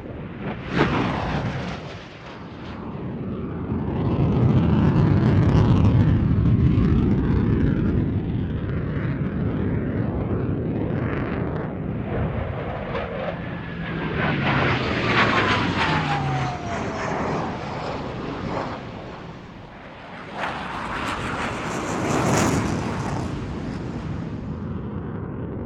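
A sequence of military jet fighter passes (CF-18 Hornet, F-16 Fighting Falcon, F/A-18 Hornet): jet engine noise swells and fades with each pass or climb, with abrupt changes between recordings. A falling whistle comes through about halfway, and a loud pass builds near the end.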